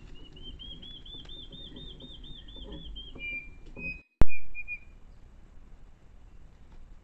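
A bird singing a rapid run of about fifteen arched whistled notes, about five a second, then a few short level whistles. A little after four seconds in the sound drops out briefly and a single sharp, loud click follows.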